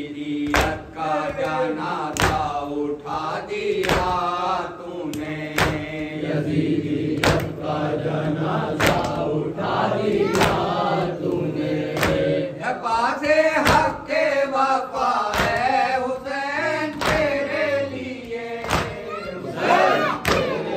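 Men chanting a noha, a Shia lament, in unison behind a lead reciter, while the mourners beat their chests (matam) in time: a sharp slap about every second and a half.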